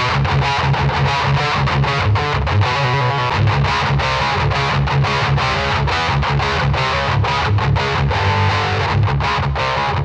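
Electric guitar played through a Wrathprayer one-knob metal distortion pedal with an HM-2-style tone stack: heavily distorted, fast-picked riffing with low notes and rapid, even repeated strokes.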